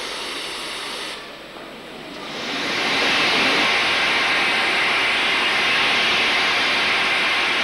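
Steam escaping with a loud, steady hiss from a BR Standard Class 4 2-6-4 tank steam locomotive at rest. The hiss swells up about two seconds in after a brief quieter moment.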